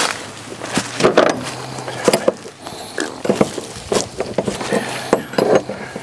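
Irregular metallic clinks and knocks of hand tools and a threaded adapter being handled and fitted.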